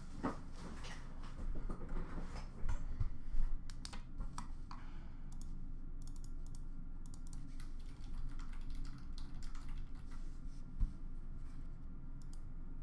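Typing on a computer keyboard: irregular keystrokes and clicks, busiest in the first few seconds and sparser after.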